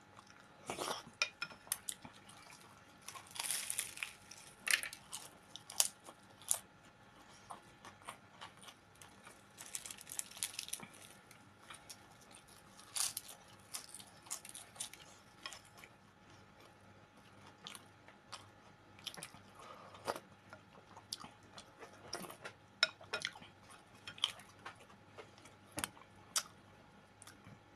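A person eating chicken cabbage soup (shchi) close to the microphone: chewing and mouth sounds in short, scattered bursts, with occasional clicks of a spoon against the bowl.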